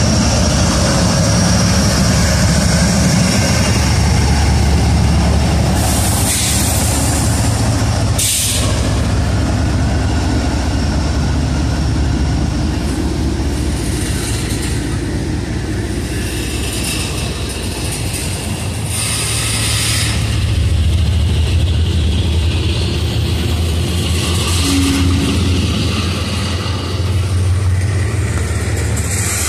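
Double-stack container freight train rolling past close by, wheels on rails making a steady loud rumble and clatter. The BNSF locomotive's diesel engine is heard as it goes by at first. Several brief high-pitched squeals or hisses break through, one about six seconds in, one about eight seconds in, one around twenty seconds in and one near the end.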